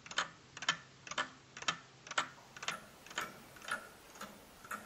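3D-printed plastic mechanical clock ticking steadily, about two ticks a second, each tick a small cluster of clicks from its printed escapement.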